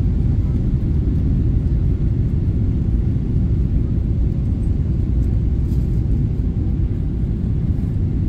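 Cabin noise inside a Boeing 777-300ER on approach: a steady low rumble of engines and airflow heard from a window seat.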